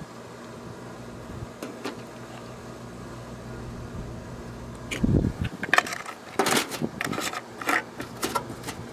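Linseed oil glugging out of a metal can into a plastic paint tray, with a low thump about five seconds in and a run of irregular knocks and glugs after it, over a steady low hum.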